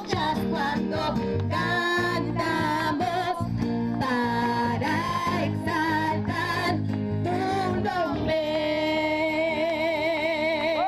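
People singing a song together, ending on a long held note in the last few seconds.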